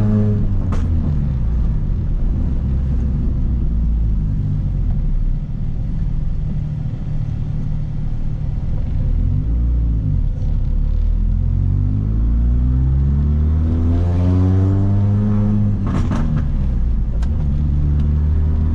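Supercharged four-cylinder engine of a Mini Cooper S R53 pulling through the revs on the move, with a loud aftermarket exhaust. The engine note falls near the start, then climbs for several seconds in the second half and drops suddenly, with a few sharp clicks, about three seconds before the end.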